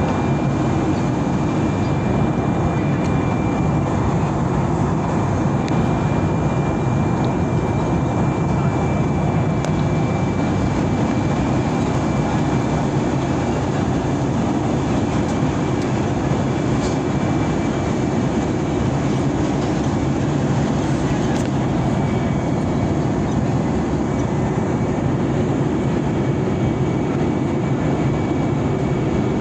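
Jet airliner cabin noise while taxiing, heard from inside: the engines' steady rumble and hiss, with a faint thin steady whine above it.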